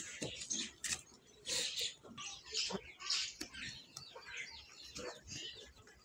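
Short, irregular scraping strokes of a curved hoof knife paring a cow's hoof, with small birds chirping in the background.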